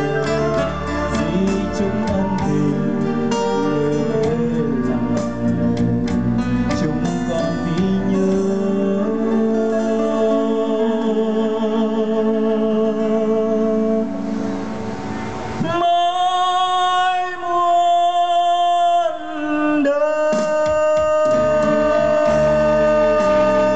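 A male singer performing a Vietnamese song with a live band. Past halfway the accompaniment thins, and the last part is made of long held notes.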